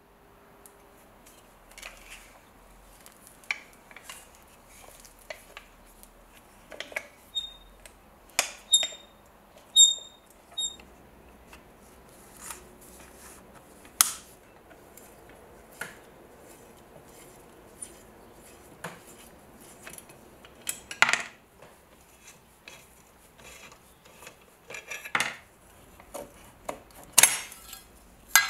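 A bit screwdriver and the metal parts of an old ship's compass being handled on a wooden board: scattered clicks, taps and knocks. Between about eight and eleven seconds in there is a run of short, high metallic tinks.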